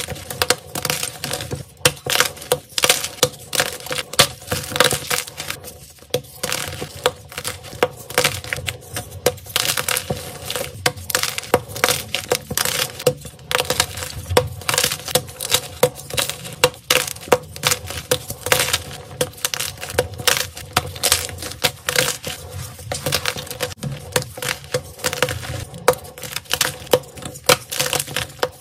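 Hands crushing and snapping blocks of white gym chalk, a dense run of irregular crunches and crumbles as the blocks break apart into powder.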